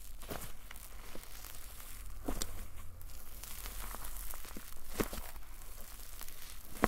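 Fluffy cloud slime made with instant snow being stretched and kneaded by hand, giving a soft crackling and tearing sound with a few sharper snaps, the loudest near the end.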